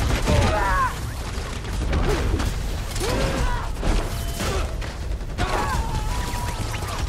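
Action-film fight sound design: a deep steady rumble under swooping, creaking effects that rise and fall a few times, with scattered sharp hits.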